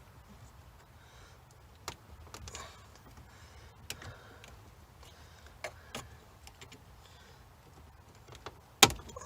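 Scattered small clicks and short scrapes of a knife blade prying at plastic dash parts, with one loud sharp click near the end.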